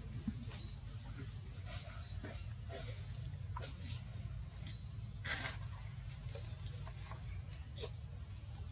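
A baby macaque's high-pitched squeaks: a string of short, rising calls about once a second, the loudest about five seconds in, over a steady low hum.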